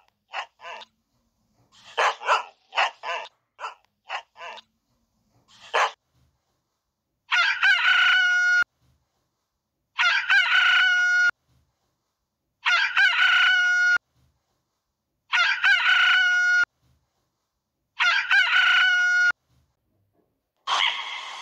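A dog barking in short runs for the first few seconds, then a rooster crowing five times, each crow about a second and a half long and evenly spaced. Near the end a different animal call begins.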